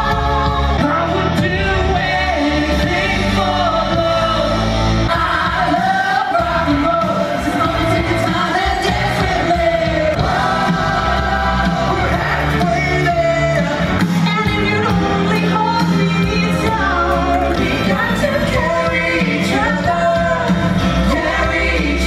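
Live rock music with singing, a stage show heard in a large theatre hall.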